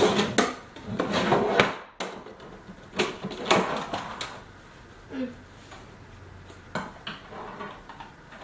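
Things being handled and put down on a wooden dresser top: a busy run of knocks, clatter and rustling for the first few seconds, then a few scattered knocks.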